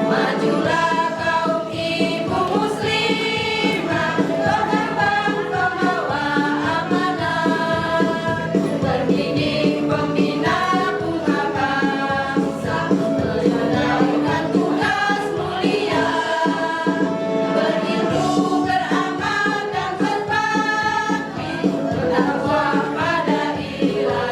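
A women's choir singing together over instrumental accompaniment with a steady beat.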